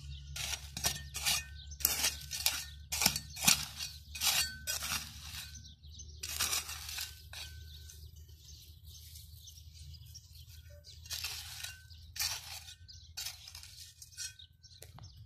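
A small metal trowel digging and scraping in dry, stony soil: a run of sharp scrapes and clinks as the blade strikes pebbles, some with a short metallic ring. The strikes pause for a few seconds in the middle, then start again.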